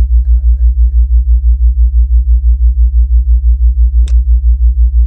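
Loud, very low droning tone pulsing evenly about five or six times a second: a theta-wave tone track. A single sharp click about four seconds in.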